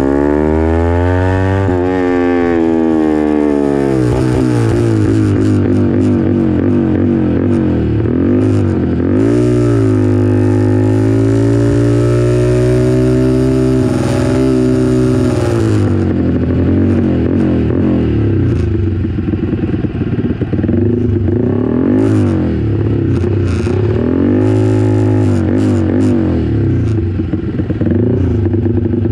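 Motorcycle engine heard from on the bike at track speed. The revs climb and drop sharply through gear changes in the first few seconds, then hold steady for several seconds. After that they fall off and give short rises and falls as the rider slows.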